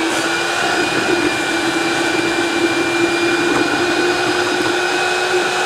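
DeWalt DCV517 cordless wet/dry vacuum running steadily, sucking water out of a pot through its hose. It makes a constant whine over a rushing of air and water.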